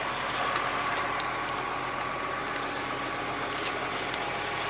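A machine's engine running steadily at a constant speed, with a few short sharp clicks over it, the loudest about four seconds in.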